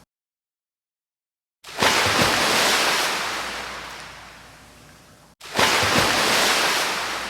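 Dead silence, then about a second and a half in a rushing hiss starts suddenly and fades slowly, cuts off, and starts again the same way.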